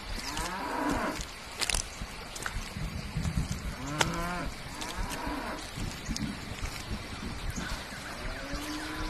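Cattle lowing several times: calls about a second in and about four seconds in, and a longer, slightly rising moo near the end, over a steady low outdoor rumble.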